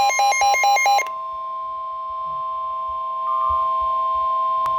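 Weather-radio emergency alert tone: a steady electronic tone of two pitches held together. During the first second a fast repeating electronic beep pattern sounds over it, then stops abruptly. Two faint clicks come near the end.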